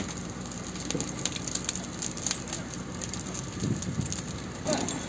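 Open fire crackling as a truck crane and dry grass burn: a steady hiss scattered with many sharp pops.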